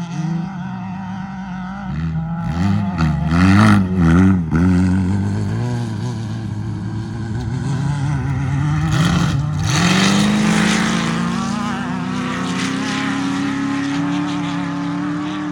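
Off-road race vehicle's engine at high revs, its pitch swinging up and down over the first few seconds, then climbing steadily through the second half as it accelerates.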